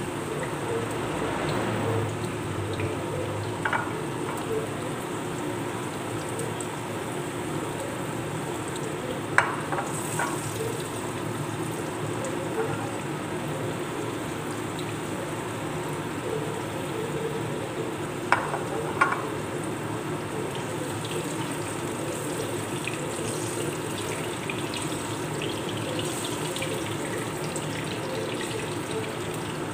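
Sweet potato slices frying in hot oil in a pan, a steady sizzle, with a few sharp clinks of the spatula turning and lifting them, about four, nine and eighteen seconds in.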